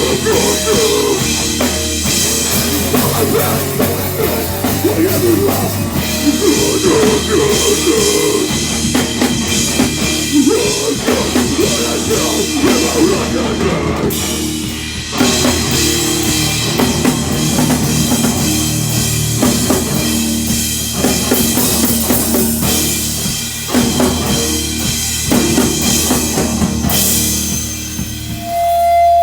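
Live heavy rock band playing loud, driven by a full drum kit with bass drum. The sound thins out briefly near the end.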